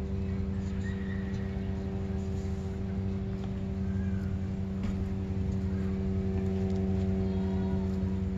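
Steady low machine hum, unchanging in pitch, with several even overtones, like a motor running at a constant speed.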